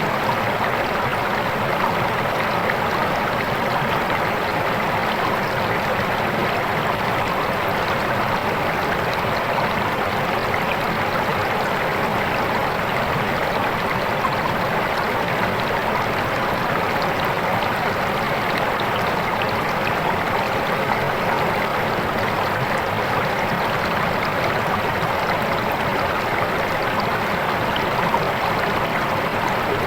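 Fast-flowing, clear river water rushing and splashing over its bed in a steady, unbroken stream sound.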